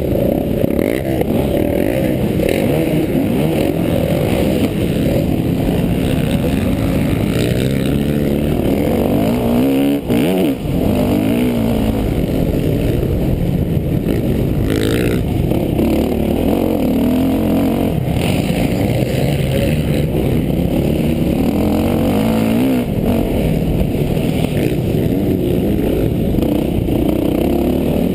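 Motocross bike engine racing on a dirt track, heard onboard from the rider's own bike, revving up and falling back again and again as the rider works the throttle and gears. The engine note drops briefly about ten seconds in.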